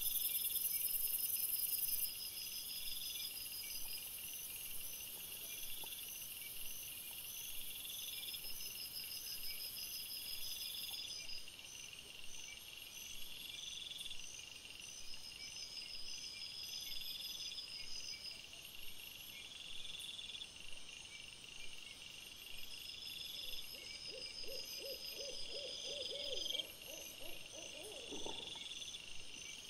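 Night insects chirping in a steady repeating rhythm, a high chirp about every two seconds over a constant high trill. Near the end a short run of fast low pulses ends in a click.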